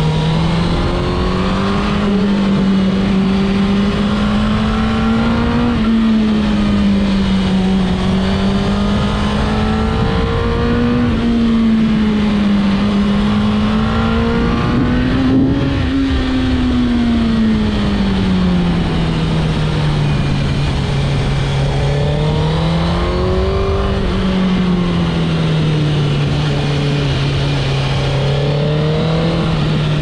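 2002 Suzuki GSX-R1000 K2's inline-four engine running under way, its note slowly rising and falling every few seconds as the throttle is rolled on and off through bends, over steady wind and road noise. A single sharp tick about halfway through.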